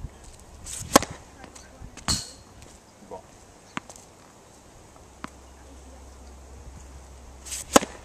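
Tennis racket strings striking the ball on serves: a sharp crack about a second in and another near the end. A second loud knock follows the first, and a few light ball bounces on the hard court fall between the two serves.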